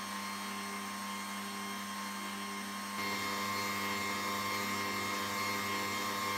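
Electric stand mixer running steadily, its beater turning through a bowl of cake batter, with a steady motor hum and whir. It gets louder about halfway through.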